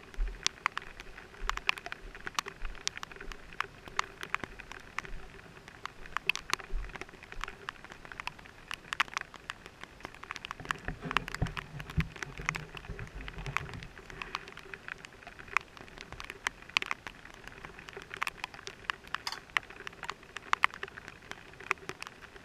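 Raindrops pattering irregularly on a helmet-mounted camera and helmet, a dense scatter of sharp ticks over the steady hiss of rain. A low rumble comes in for a few seconds about halfway through.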